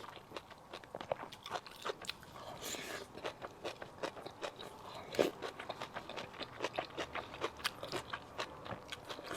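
Close-up chewing of braised pork rice: many short mouth clicks, several a second, with one louder click about five seconds in.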